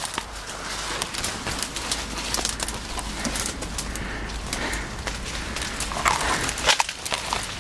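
Footsteps crunching through dry leaves, with branches and twigs rustling and snapping as someone pushes through dense undergrowth. There is a run of irregular clicks and cracks, louder near the end.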